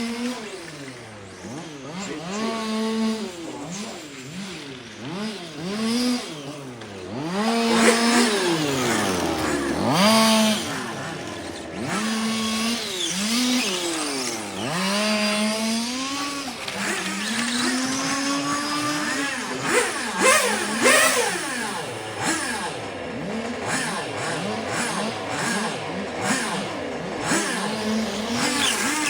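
Small two-stroke petrol engines of 1:5-scale RC cars running on a track, revving up and down over and over, at times holding a steady high pitch. More than one engine is heard at once.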